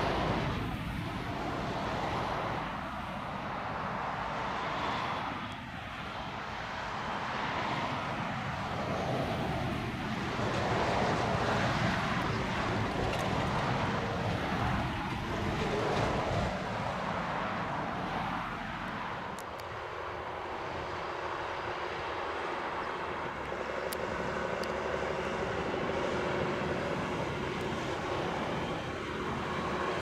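John Deere tractor's diesel engine running steadily under load while pulling a plough through the soil, a continuous dense rumble. The sound changes character about two-thirds of the way through, with less low rumble after.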